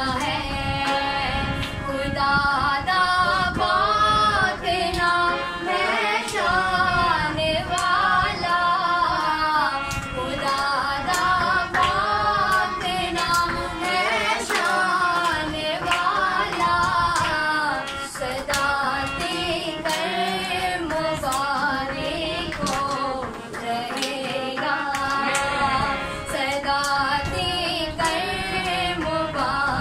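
A woman's voice singing a devotional psalm (Zabur) in a sung melody over a steady percussive beat.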